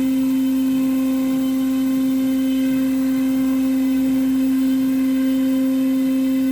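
Multicam MT513 Pro CNC router running, giving a constant humming tone that holds one pitch throughout.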